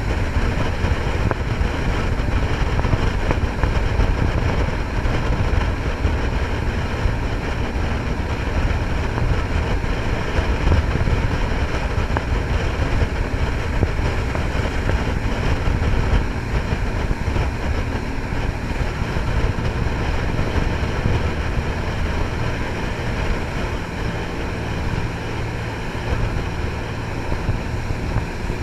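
Jet boat powered by three Cummins marine diesels driving Hamilton water jets, running steadily underway, with rushing water and wind noise.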